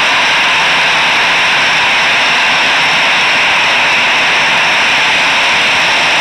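Loud, steady hiss of heavy rain, with the high, even whine of the parked Eurowings airliner's turbines running on the stand.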